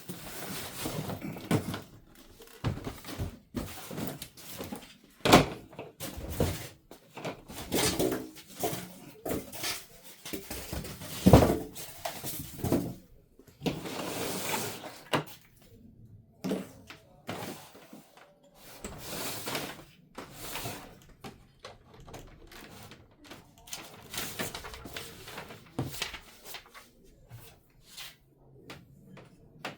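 Handling noises: irregular knocks and clunks with stretches of scraping and rustling, as a printer and its packing are moved about and opened up by hand. The two loudest knocks come about five and eleven seconds in.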